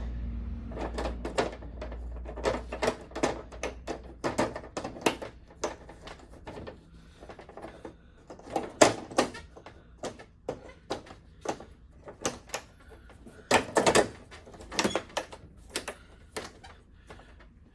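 Plastic inner frame of an LG 55-inch LCD TV being fitted over the backlight sheets and pressed into place: a run of irregular plastic clicks and knocks as its clips snap in.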